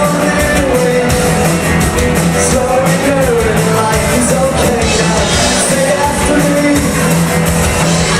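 Live rock band playing a cover song with a singer, drums and cymbals striking steadily under the vocal line.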